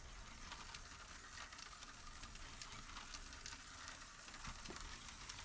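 Several battery-powered Tonka Climb-Overs toy trucks driving along a plastic track: a faint, crackly hiss from their small motors and wheels, dotted with many tiny clicks.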